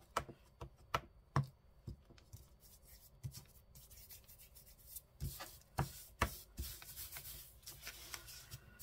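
Hands pressing and rubbing glued paper down onto a book page. A run of sharp taps comes first, then from about five seconds in a stretch of rubbing broken by further taps.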